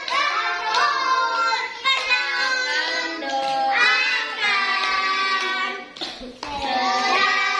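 A group of young children singing a birthday song together, clapping their hands along.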